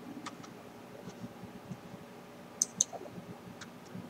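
Computer mouse clicking: a quick pair of sharp clicks a little past halfway, with a few fainter ticks around them.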